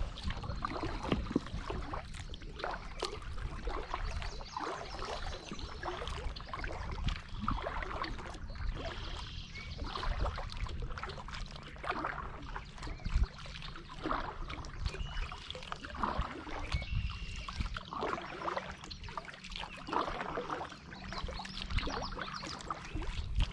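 Kayak paddle strokes through calm water, the blades dipping, pulling and dripping, about one stroke every two seconds.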